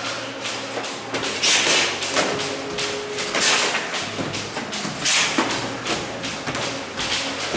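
Boxing gloves landing on gloves and padded headgear during sparring: a string of irregular thuds, with a few louder hits.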